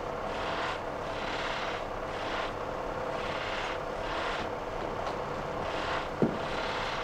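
A workshop machine running steadily, a constant hum under a hiss that swells and fades roughly once a second. A single sharp knock about six seconds in.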